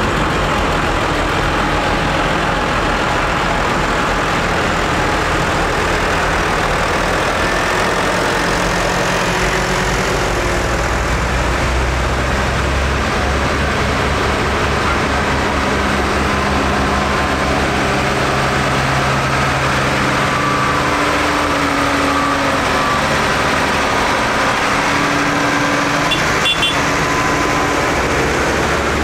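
Diesel engines of farm tractors driving slowly past one after another, a steady drone whose note shifts as each tractor goes by.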